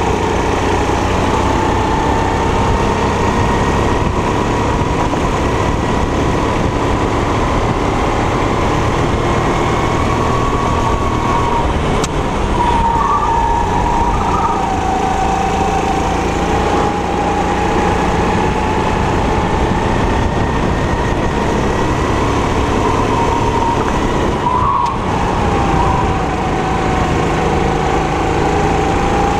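Four-stroke 270 cc kart engine running hard through a lap. Its pitch falls twice, about twelve seconds in and again about twenty-five seconds in, as revs drop for corners, and climbs steadily again on the straights.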